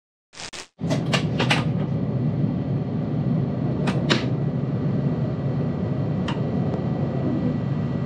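Steady low hum of a freight locomotive's cab while it stands waiting to depart, cutting in under a second in. A few sharp clicks sound over it: a cluster around a second in, two more around four seconds, and one near six seconds.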